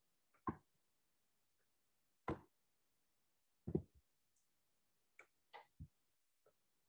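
Near silence broken by a few short, separate clicks, about five in all, from a computer mouse being clicked while text is selected.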